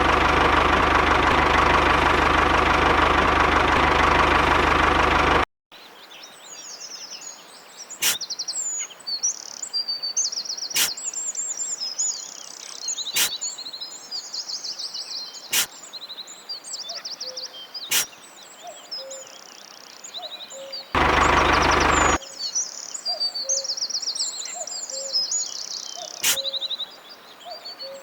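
Birds chirping and singing, with a sharp click about every two and a half seconds. It opens with a loud, steady sound with a low hum that cuts off abruptly about five seconds in, and a similar loud burst returns for about a second near 21 seconds.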